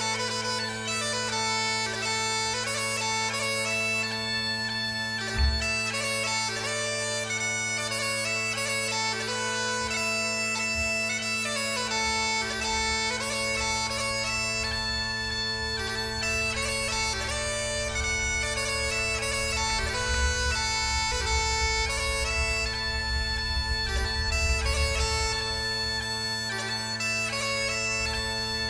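Background music: a steady low drone under a high, shifting melody. A low rumble comes and goes beneath it, strongest about twenty seconds in, with a single thump about five seconds in.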